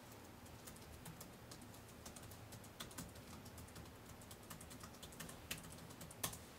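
Faint, irregular clicking of keys typed on a computer keyboard, with two sharper key clicks near the end.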